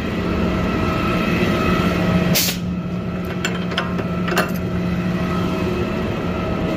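Automated side-loader garbage truck idling with a steady drone, a short sharp hiss of released air about two and a half seconds in, then a few light knocks.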